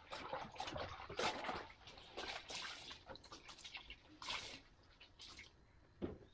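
Water splashing and sloshing in short, irregular bursts while laundry is being washed.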